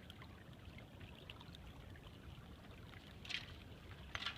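Faint flowing water from an open stretch of an ice-covered creek, with a low rumble underneath and two brief louder noises near the end.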